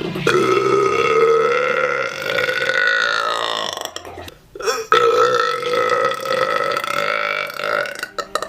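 A woman's long, drawn-out belches: two sustained burps of about three and a half seconds each, with a short pause between them.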